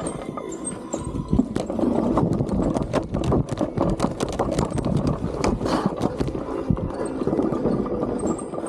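Irregular clattering and knocking from an electric unicycle riding over rough, rocky trail, with jolts coming in quick uneven runs over a low rumble.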